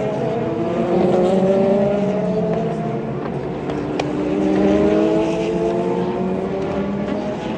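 Endurance race cars' engines accelerating past, several in turn, each engine note rising steadily over a few seconds and overlapping the next. A sharp click about four seconds in.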